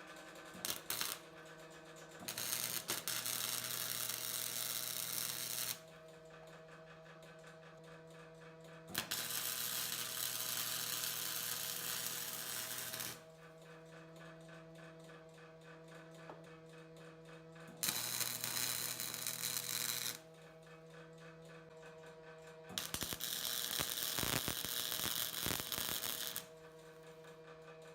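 Electric welder's arc sizzling in four bursts of a few seconds each while tacking and welding the motor plate onto a mini bike frame, with a steady electrical hum between the bursts.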